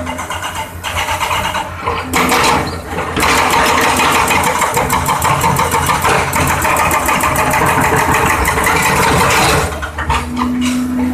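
Excavator-mounted hydraulic breaker hammering concrete: a rapid, even run of blows starting about two seconds in and stopping near the end, over the excavator's running engine.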